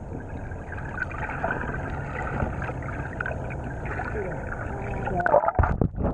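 Swimming-pool water heard through a submerged camera: a steady muffled rumble and hiss, with a few louder splashes and knocks near the end.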